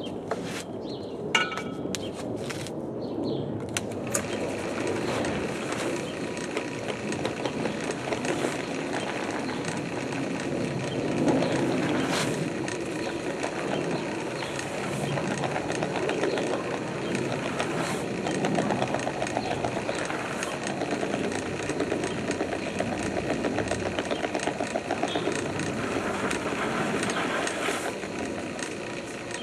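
Drill press driving a steel dough hook through a batch of bread dough in a rotating propane-tank bowl: a steady mechanical churning. A few sharp clicks come in the first few seconds, and about four seconds in the sound grows fuller.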